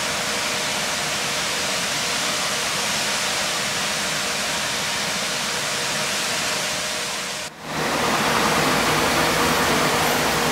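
Foamy wastewater gushing from an outfall into a river, a steady rush of falling water. About three-quarters of the way through it breaks off for an instant and comes back slightly louder and deeper.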